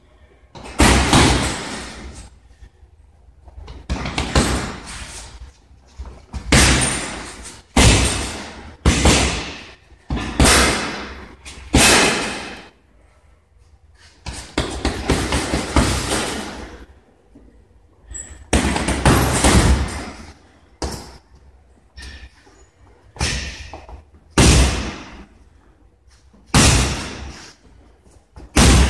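Punches landing on a hanging heavy bag: sharp smacks every second or two, sometimes two or three in quick succession, about twenty in all. Each trails off in the echo of a large gym hall.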